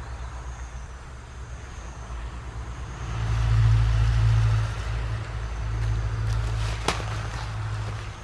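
Truck going past on a nearby road: a low engine rumble that swells to its loudest about three to four seconds in, then eases off. A single sharp click sounds near the end.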